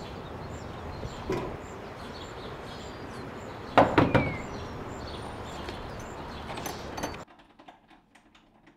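Knocking on a door with a fist: a single knock about a second in, then a quick run of three or four knocks about four seconds in, over steady outdoor ambience. Near the end the sound drops suddenly to quiet room tone.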